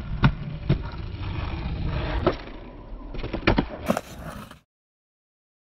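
Skateboard wheels rolling on a concrete sidewalk, a steady rumble broken by about five sharp clacks of the board on the concrete. The sound cuts off suddenly about four and a half seconds in.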